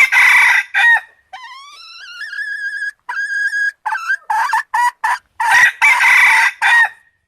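Wild junglefowl roosters crowing repeatedly: a string of harsh crows, one rising into a held note about a second and a half in. The calls stop abruptly just before the end.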